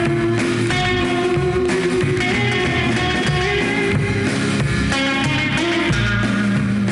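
Guitar-led 1960s rock record playing, with electric guitar and a steady rhythm section.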